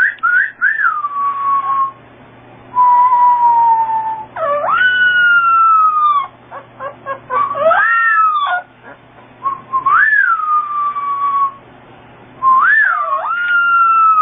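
A puppy howling along with a person's whistling: thin, high wails that swoop up and slide slowly down, in several phrases of a second or more with short pauses between.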